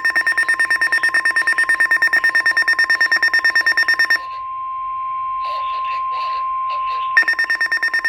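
Weather-radio alert: a steady 1050 Hz warning tone sounds throughout, with a rapid high pulsing alarm beep over it for the first four seconds, which stops, then returns briefly near the end. The warning tone announces an incoming weather alert.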